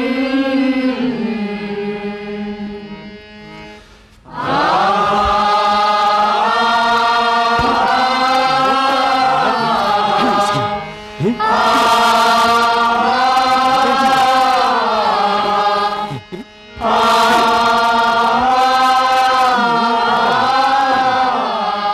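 Chant-like singing over a steady low drone, in long held, wavering notes. The song runs in long phrases, with short breaks about 11 and 16 seconds in.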